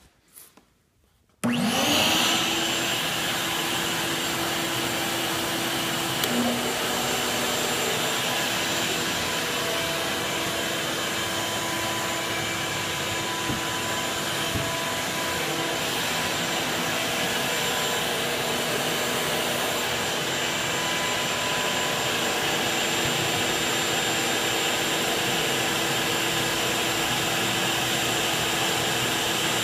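A shop vac switches on about a second and a half in and runs steadily at one level.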